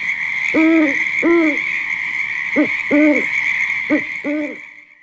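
Owl hooting in pairs of short rising-and-falling hoots, three pairs a little over a second apart, over a steady high hiss that fades out near the end.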